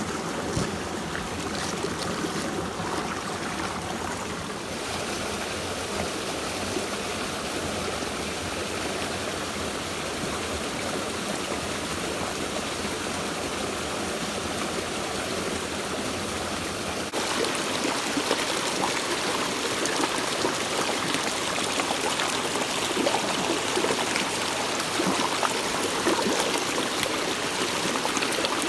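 Mountain stream water flowing steadily over rocks, an even wash of water noise that steps up louder about 17 seconds in.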